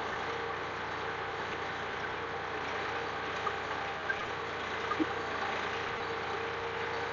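Sonalika 47 RX tractor's diesel engine running steadily under load as it pulls a two-disc plough through the soil, with a few faint clicks.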